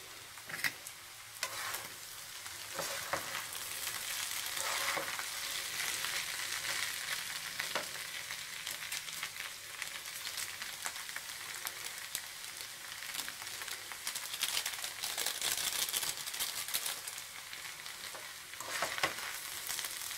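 Instant noodles with egg and vegetables sizzling in a nonstick frying pan, with short clicks and scrapes of a metal fork against the pan as they are stirred.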